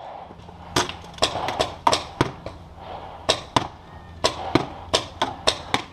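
Paintball markers firing during a firefight: a rapid, irregular string of about fifteen sharp pops.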